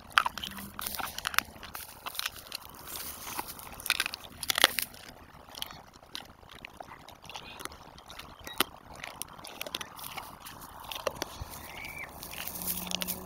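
A dog crunching and chewing a dried chicken foot, with irregular sharp crunches coming every second or so.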